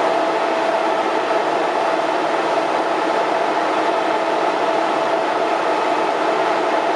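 ICE high-speed train's electric power car standing with its equipment running: a steady hum with a held mid-pitched tone, unchanging throughout.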